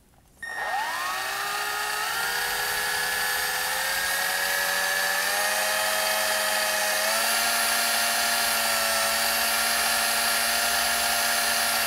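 Electric drill spinning up to wind fine 36-gauge Ni80 wire around a core of three 27-gauge Ni80 wires for an Alien coil. It starts about half a second in with a quick rise in pitch, then runs steadily, its whine stepping higher a few times as the speed is raised.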